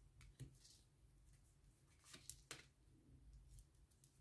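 Near silence over a low steady hum, with a few faint clicks and rustles of tarot cards being handled, most of them a little over two seconds in.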